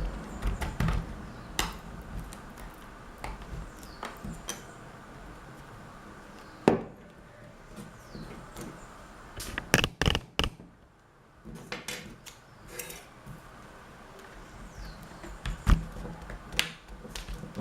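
Scattered clicks, taps and a few sharp knocks of small repair tools against a Samsung Galaxy Tab 3's plastic frame and glass digitizer as it is worked loose; the loudest knocks come bunched about ten seconds in.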